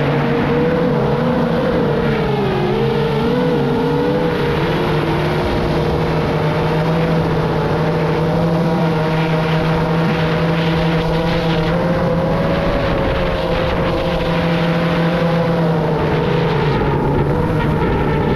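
FPV drone's motors and propellers whining, their pitch wavering up and down as the throttle changes, over a steady rush of wind noise on the drone's onboard camera microphone.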